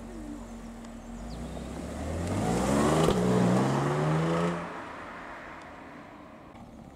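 Audi S4 Avant's supercharged V6 accelerating hard away, revs climbing, a brief break about three seconds in, climbing again, then dropping off suddenly near five seconds as the car fades into the distance.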